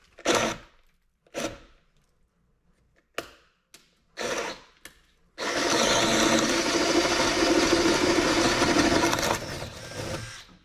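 Cordless drill boring with a paddle bit into 3/4-inch plywood: four short trigger bursts, then a steady run of about four seconds that dies away near the end.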